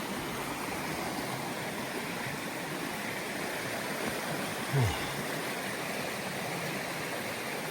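A creek running with a steady rush of water. About halfway through there is one short, low sound that falls in pitch.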